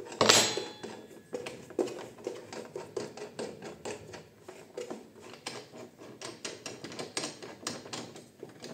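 Metal parts of a small benchtop wood lathe (Parkside PDM 600 C3) clicking and rattling as the tailstock is loosened and the turned workpiece is taken off between the centres. It opens with a sharp knock, then runs on as irregular clicks, a few a second.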